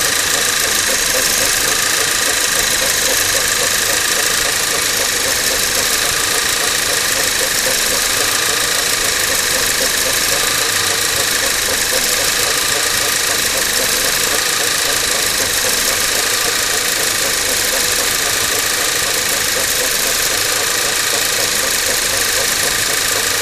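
Skoda Octavia 1.8 TSI turbocharged four-cylinder petrol engine running cold, with a steady, fast shuffling, scraping noise over the engine sound. It is the extraneous noise this engine makes only when cold, a few minutes after starting, lasting 3 to 5 minutes; its cause is not known.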